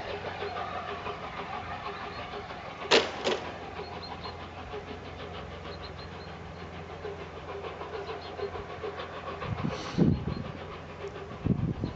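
Three-cylinder steam locomotive, LNER A4 Pacific 60007 "Sir Nigel Gresley", working away into the distance, its exhaust beats and running sounds steady and moderate. Two sharp clicks about three seconds in and another knock just before ten seconds.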